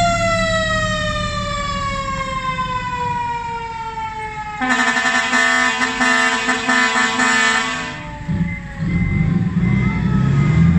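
Dump truck's siren winding slowly down in pitch. About four and a half seconds in, the truck's bank of air horns sounds a steady multi-tone chord for about three seconds and cuts off suddenly. After that the diesel engine is heard running, with a faint steady beeping.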